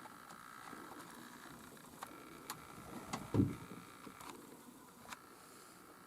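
A single dull, low thump about three and a half seconds in, over a quiet background with a few faint sharp ticks.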